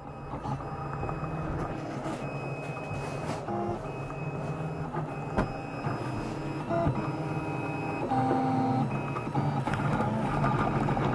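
Printrbot Simple Metal 3D printer printing: its stepper motors whine in several tones that shift in pitch every second or so as the print head moves, over a steady low hum.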